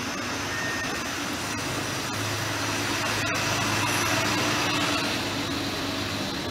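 A motor vehicle passing along the street: engine hum and road noise swell to a peak about four seconds in, then ease off.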